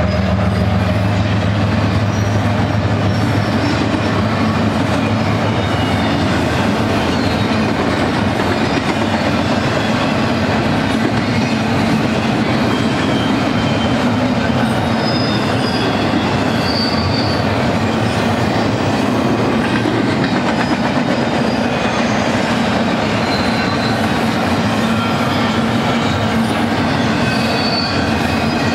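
Double-stack intermodal freight train rolling past on steel rails, a steady loud rumble of well-car wheels with high wheel squeals coming and going. The low drone of the last locomotive's diesel engine fades in the first second or two.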